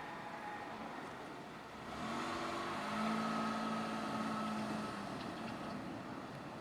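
A road vehicle passing at the level crossing: a car engine hum that swells about two seconds in, holds steady, and fades about five seconds in.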